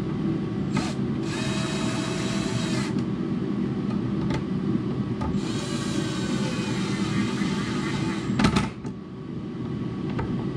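Power drill driving cab-light screws into rivnuts: two runs of motor whine, the first about a second and a half, the second about three seconds, then a sharp knock, over a steady low hum.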